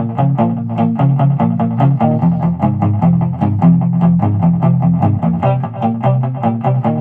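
Gretsch Rose Falcon hollow-body electric guitar playing a fast boogie riff: quick, even picked notes over a repeating, chugging low-string bass pattern.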